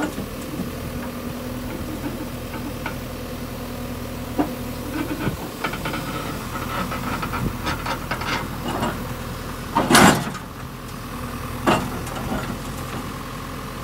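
Backhoe loader's diesel engine running steadily while its bucket digs into muddy earth and rubble, with scattered knocks and scrapes. A sudden loud burst of noise about ten seconds in, and a smaller one near twelve seconds.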